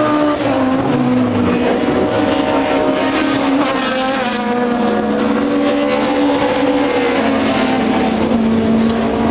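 Several racing car engines running at once, a steady loud drone whose pitches waver and glide a little up and down.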